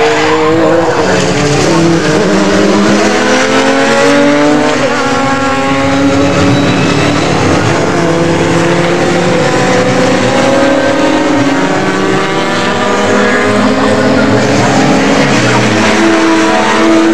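Several Radical SR4 sports-racers running hard, their high-revving engines overlapping and rising and falling in pitch as they accelerate and lift off through the corner.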